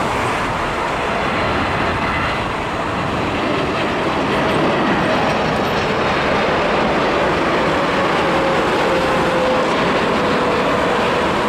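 Boeing 747-8's four GEnx turbofan engines on landing approach: a steady, loud jet roar, with an engine whine that slowly falls in pitch from about halfway through as the aircraft passes.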